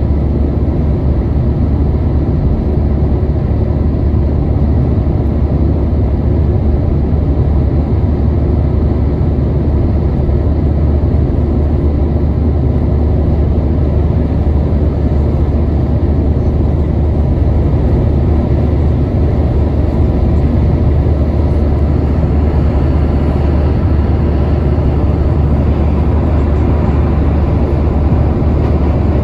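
Steady low rumble of road and engine noise heard inside a car moving at highway speed, even throughout.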